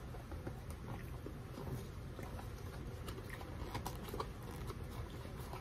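Faint crackling and scraping of a paperboard food box being handled, its top flap pulled and worked by hand, in scattered small clicks.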